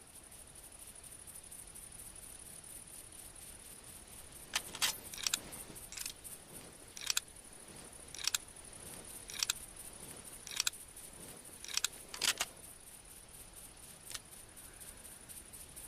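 Sharp metallic clicks from a .30-06 Springfield bolt-action rifle being handled, most likely its bolt being worked, about one click a second for some eight seconds over a faint steady hiss.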